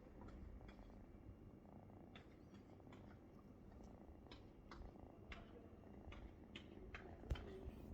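A cat purring faintly, a low steady rumble, with scattered soft clicks and a single sharper knock near the end.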